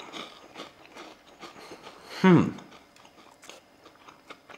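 A person biting and chewing a crunchy cheese puff-pastry twist, with small dry crackles throughout. About two seconds in comes a short, loud hum that falls in pitch.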